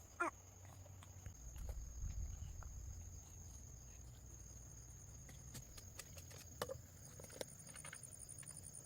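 Faint outdoor background: a steady high-pitched hum like insects, a low rumble and scattered small clicks. A short animal call just after the start is the loudest sound.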